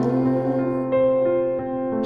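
Instrumental accompaniment of a children's carol: steady chords held between two sung lines, changing about halfway through.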